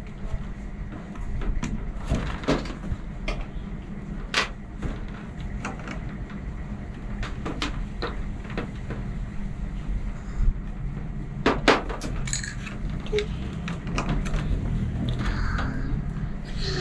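Small plastic Polly Pocket toy pieces clicking and tapping as they are handled, fitted together and set down on a metal tabletop, in irregular scattered taps over a steady low hum.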